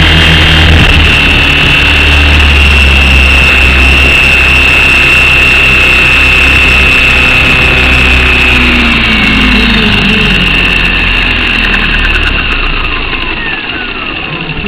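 Align T-Rex 550 flybarless electric RC helicopter heard from its own airframe: a steady high motor-and-gear whine over the rotor wash, which spools down after landing. The whine falls in pitch from about nine seconds in and the sound fades toward the end.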